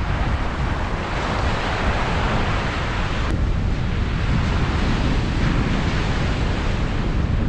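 Ocean surf washing up a beach, the hiss of the wash swelling about a second in and easing off a few seconds later, over a steady low rumble of wind on the microphone.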